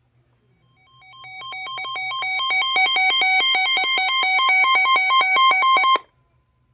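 Emergency alert attention tone: a buzzy two-tone warble switching rapidly between a lower and a higher pitch several times a second. It fades in over about a second and a half, then cuts off sharply near the end, just before the spoken warning.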